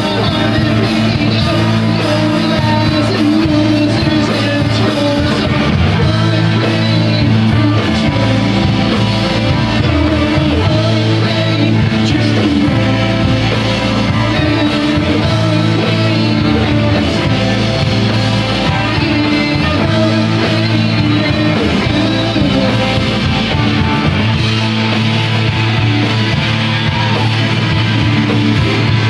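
Rock band playing live and loud: distorted electric guitars over bass and drums, with singing, heard through the club's room sound.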